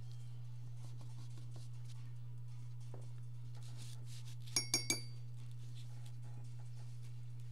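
Three quick ringing clinks of glass a little past halfway, over a steady low electrical hum.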